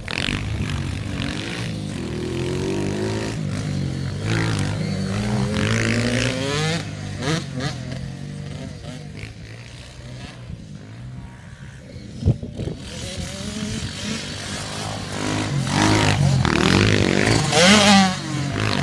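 Small 65cc dirt bike engine revving up and down as it rides the dirt track, its pitch climbing and dropping with each run. It fades in the middle and grows loud again as the bike passes close near the end, with a single sharp knock about twelve seconds in.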